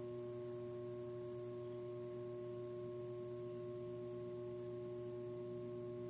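A steady hum made of several fixed tones, one low and several higher, with no change in pitch or loudness.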